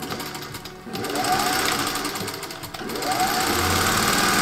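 Vintage black sewing machine stitching, its needle running in a fast even patter that picks up about a second in, eases briefly, then runs on steadily.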